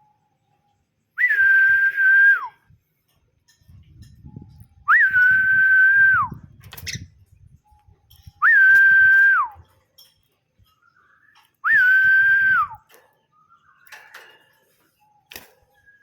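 Four identical whistles, evenly spaced. Each is a quick upward flick, then a held steady note of about a second, then a drop away at the end.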